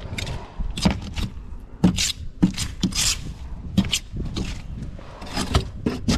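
Hand scraper scraping grime and moss off the bottom edge of an electrical box, in a series of short, sharp strokes roughly one or two a second.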